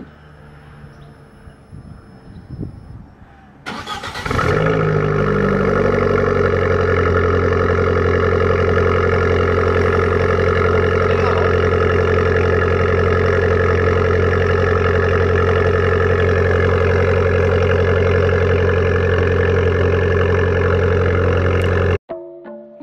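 Abarth 500's 1.4 turbo four-cylinder started from cold through a straight-piped exhaust with the back box deleted. The starter cranks briefly about four seconds in, then the engine catches and settles into a loud, steady idle, which cuts off suddenly near the end.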